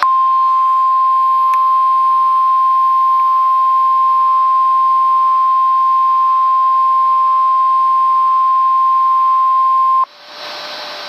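NOAA Weather Radio warning alarm tone: one steady, loud, high single-pitched beep held for about ten seconds, cutting off abruptly into radio static hiss near the end. It is the 1050 Hz alert that signals a warning-level message, here a severe thunderstorm warning, is about to be read.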